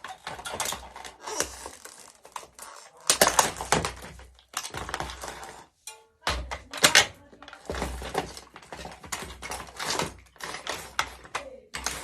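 Plastic remote-controlled toy car crunching and cracking under high heels: dense sharp cracks and clicks, with short pauses between bouts.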